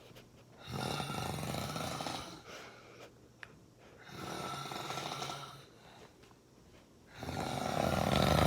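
A sleeping man snoring: three long snores about three seconds apart, the last one the loudest.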